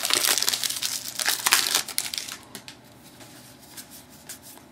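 Crinkling of a trading-card pack wrapper being torn and handled for about two seconds, then fading to a few faint clicks of cards being handled.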